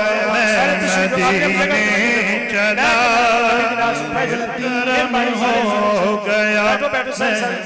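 A man singing an Urdu naat through a microphone and PA in long, drawn-out melodic lines, over a steady low drone.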